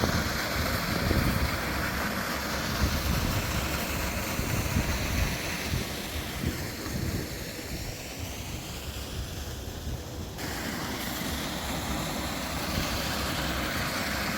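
Steady rush of falling and running water from a beck and waterfall, with wind buffeting the microphone in gusts through the first half.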